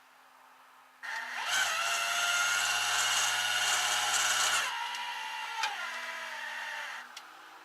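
A motor whining steadily: it starts about a second in, runs loudest for about three seconds, then continues more quietly and cuts off near the end.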